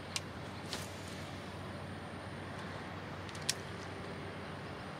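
Quiet outdoor background noise with a few small clicks from a spinning reel as a lure is fished, the sharpest about three and a half seconds in.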